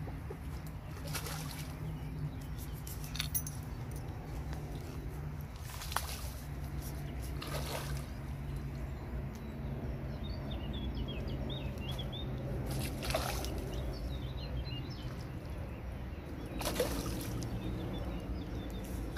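Hooked crucian carp thrashing at the surface of shallow, reedy water while being played. About six separate splashes come a few seconds apart.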